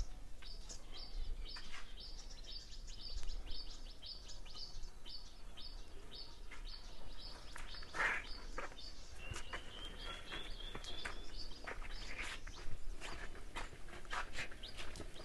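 Small birds chirping repeatedly in quick short notes, with one brief rising trill a little after the middle, over faint outdoor background noise.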